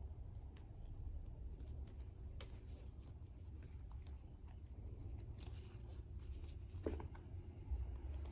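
Quiet handling of stationery packaging: scattered short rustles and small clicks of paper and plastic, over a low steady hum.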